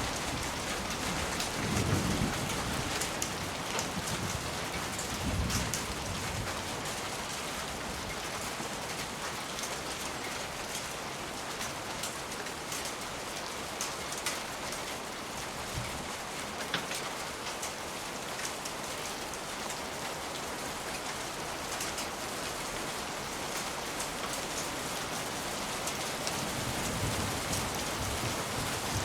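Steady rain with scattered light ticks, and low rumbles of distant thunder about two and five seconds in and again near the end.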